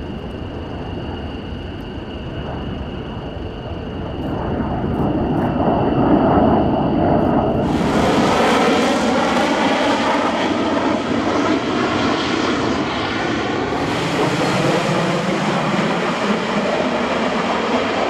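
AV-8B Harrier jet noise from its Pegasus turbofan. A steady jet sound grows louder about four seconds in. Near eight seconds it changes abruptly to a louder, brighter jet sound with slowly sweeping tones, and there is a further abrupt change near fourteen seconds.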